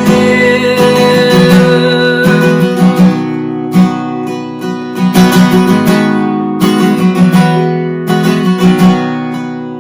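Worship music: an acoustic guitar strummed in a steady rhythm over held chord tones, with no singing.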